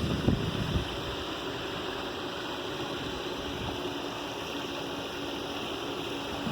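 Steady rushing of water with the pool's sand-filter pump running, a faint steady hum joining about halfway through. A few low thumps in the first second.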